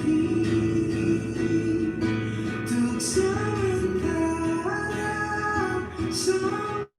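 Background music: a pop song with guitar, briefly cutting out to silence near the end.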